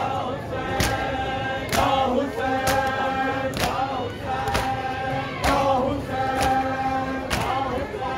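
A group of men chanting a noha, a Shia lament, in held notes. Over it, hands strike bare chests in unison (matam) about once a second, a sharp slap on each beat.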